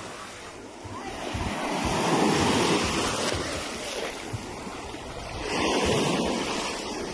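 Waves of the Sea of Azov washing onto the shore, swelling up twice and falling back, with wind buffeting the microphone.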